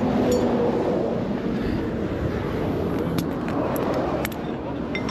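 Steady vehicle rumble, with a few light metallic clicks about three to four seconds in.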